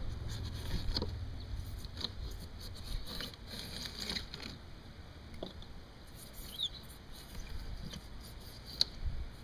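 Hand tool scraping and picking at a styrofoam core and water-rotted wood: small, irregular scrapes and clicks.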